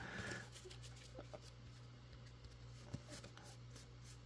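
Faint rustling and light ticks of trading cards being handled, over a steady low hum.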